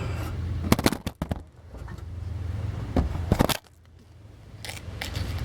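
Several sharp clicks and knocks, about five, over a low steady hum.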